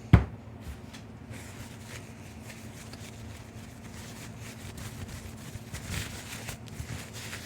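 A single sharp knock just after the start, then faint rustling and small clicks as a jaw harp and its case are handled.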